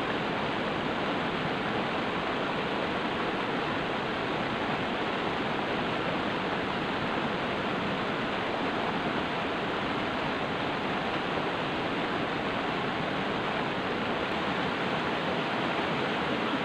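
Steady rush of a small river cascade tumbling over boulders into a pool.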